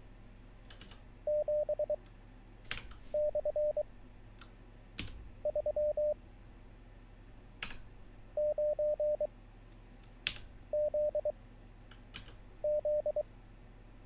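Morse code practice tone from the LCWO Morse Machine trainer: six single characters at 23 words per minute, each a short burst of mid-pitched dits and dahs, about two seconds apart. Between them come single computer-keyboard key presses as each character is copied.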